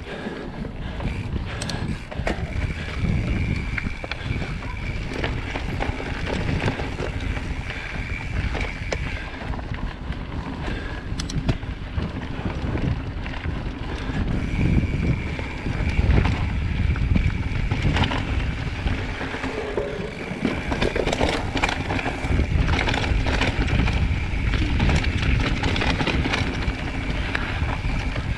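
Mountain bike riding fast along a rough dirt forest singletrack: wind rushing over the microphone, tyres rumbling on the dirt, and the bike rattling and knocking over roots and stones.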